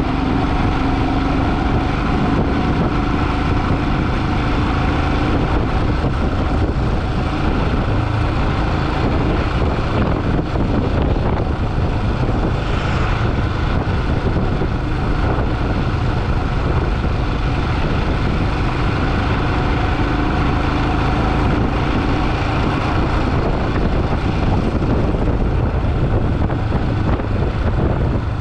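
Motorcycle running at a steady road speed, its engine tone holding under heavy wind rush on the microphone.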